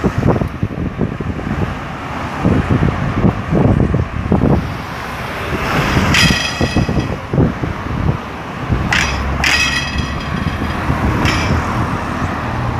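Street traffic: cars driving past close by, with a steady low rumble. Short high-pitched squeals or calls come through about six, nine and eleven seconds in.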